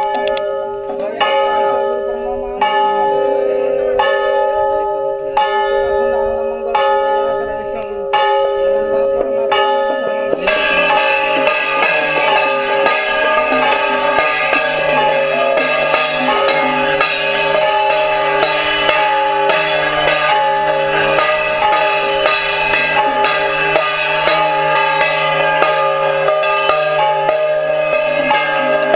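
Hand-held brass gongs struck with sustained metallic ringing: single strokes about every second and a half at first, then about ten seconds in breaking into rapid continuous beating.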